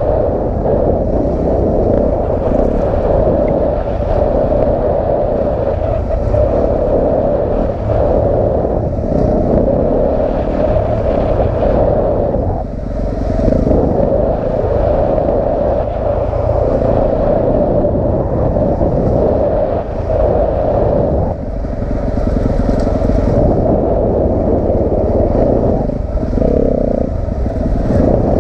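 Yamaha dirt bike engine running hard under changing throttle as the bike is ridden along a forest singletrack, with brief dips as the rider backs off about twelve seconds in and twice more around twenty seconds in. Wind and trail rattle run under the engine.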